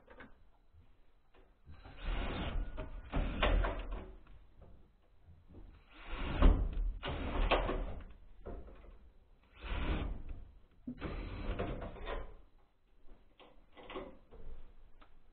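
Handheld power drill or screwdriver run in about five short bursts of one to two seconds each, driving fasteners into the eave overhang cladding.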